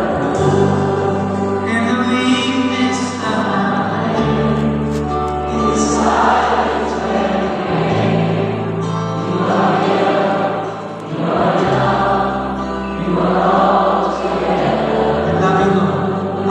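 Background music: a choir singing a slow hymn-like piece over held bass notes that change every few seconds.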